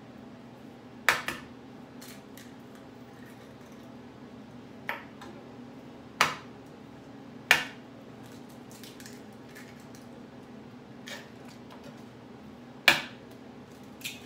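Eggs being cracked open over a plastic mixing bowl: a series of sharp, separate knocks of shell against the bowl, spaced a second or more apart. A low steady hum runs underneath.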